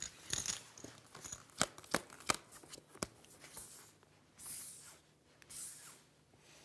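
Playing cards and chips handled at a poker table: several sharp clicks in the first three seconds, then two soft swishes as cards are slid face-up across the felt while the flop is dealt.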